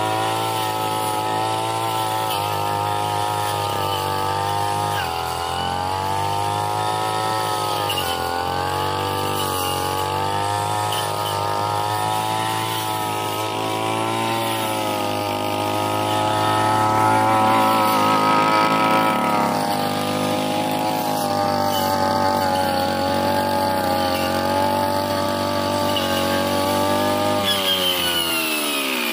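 Backpack brush cutter's petrol engine running at high revs, its pitch wavering up and down as the circular metal blade cuts through grass and brush. Near the end the revs fall away sharply.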